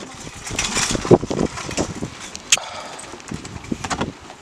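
Scattered knocks, clicks and rustling of movement and handling as a car door is opened, with one sharp click about two and a half seconds in.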